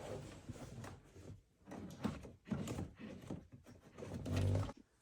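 Hands rummaging behind a UTV's plastic dash panel, pulling at wiring: scattered rustles and light knocks of plastic and wires, with a louder, dull, low thump about four and a half seconds in.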